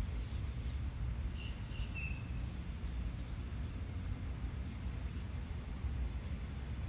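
Steady low outdoor rumble, with a few short bird chirps about one and a half to two seconds in.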